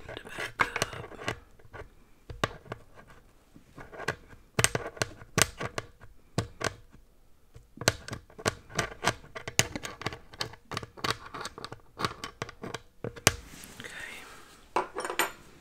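Irregular run of sharp clicks and scratching, handling noise close to the microphone, with a short lull about halfway through.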